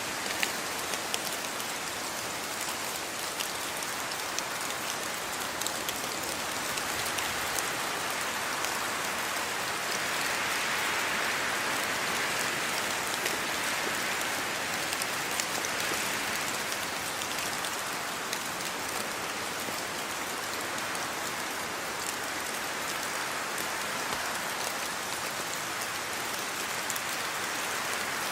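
Steady rain falling, an even hiss with many individual drops ticking on a hard surface, swelling slightly for a few seconds in the middle.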